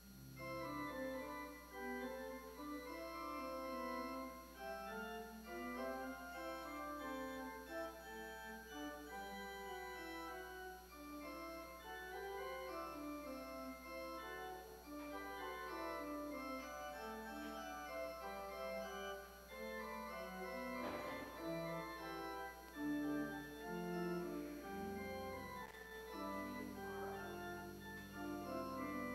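Organ playing the postlude that closes the service: a continuous flow of sustained chords over a moving bass line.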